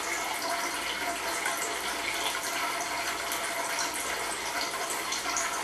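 Water streams from a homemade Kelvin's water dropper falling and splashing into metal cans, a steady trickling and spattering with faint fine ticks.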